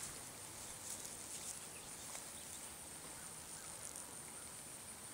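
Quiet field ambience: a steady high hiss with a few faint, scattered ticks and rustles in dry grass.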